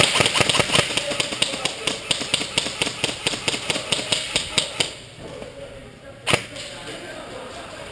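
Airsoft guns firing a rapid, regular string of sharp snaps, about five a second, that stops about five seconds in; a single sharp shot cracks a second later.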